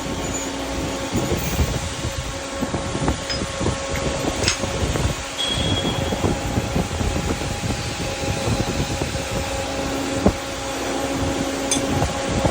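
Excavator's diesel engine running steadily with a dense low rumble and a steady hum, with a couple of brief knocks over it.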